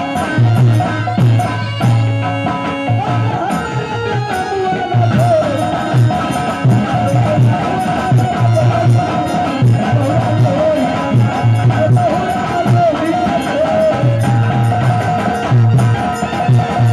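Live folk stage-band music: a clarinet playing a wavering melody over repeated low drum strokes.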